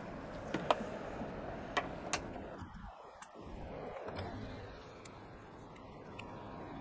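A few short, sharp plastic clicks and knocks from a hose fitting and jerry can being handled and connected, the loudest about two seconds in, over a steady background hiss.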